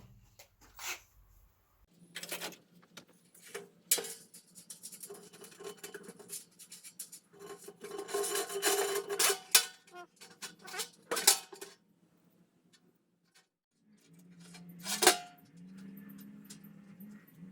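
Metal clinking, scraping and rubbing as a steel cable and a cable clamp are handled during assembly, with scattered sharp clicks and knocks. The loudest knocks come about two-thirds of the way in and again near the end.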